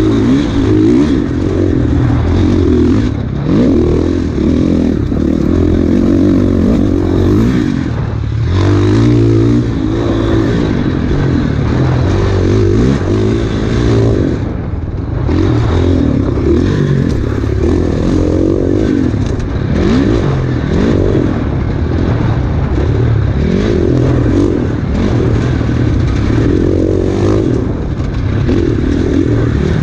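Enduro dirt bike engine ridden hard on a trail, its pitch rising and falling over and over with throttle and gear changes, along with rattling from the bike over rough ground.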